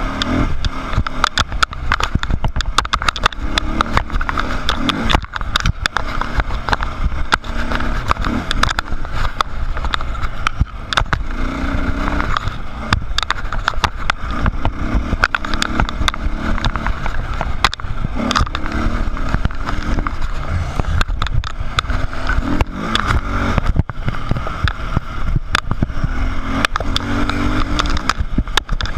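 Dirt bike engine running hard on a rocky trail, its note rising and falling every few seconds as the throttle is worked, with frequent sharp knocks and rattles as the bike bounces over rocks, heard through a handlebar-mounted camera.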